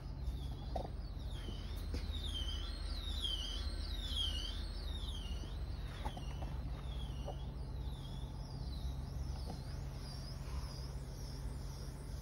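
Agitator drive of a stainless steel mixing vessel running under inverter speed control: a steady low motor hum, with a high-pitched squeak that repeats about twice a second.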